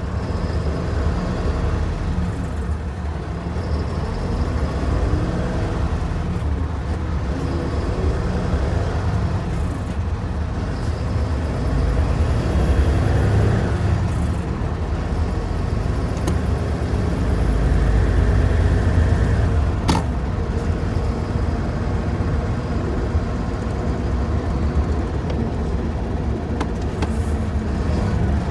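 Cab interior of a new-model Hino Profia truck on the move: steady diesel engine rumble and road noise, the engine note rising and falling in the first half, with a single sharp click about two-thirds of the way through.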